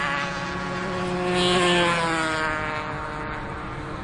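Yamaha TZR 125 two-stroke race motorcycles passing at speed. The engine note swells to its loudest about one and a half seconds in, then drops in pitch and fades as they go by.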